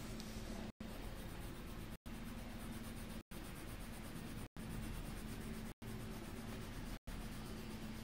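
Colored pencil scratching steadily on paper as an outline drawing is shaded in. The sound drops out completely for a split second about every second and a quarter.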